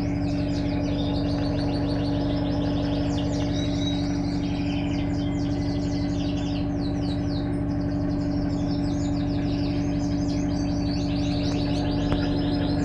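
Electrolux LTE12 washing machine running with a steady, unchanging hum, while birds chirp and trill rapidly throughout.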